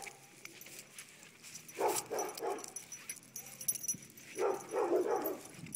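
Dog barking in two short runs of a few barks each, the first about two seconds in and the second about four and a half seconds in.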